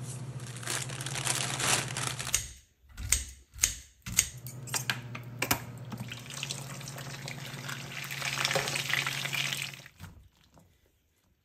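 Kitchen stove-top sounds: water bubbling at a boil in a pot over a steady low hum, a few sharp knocks of utensils on cookware, then food sizzling in a frying pan as bean sprouts go onto fried eggs. The sound stops suddenly about ten seconds in.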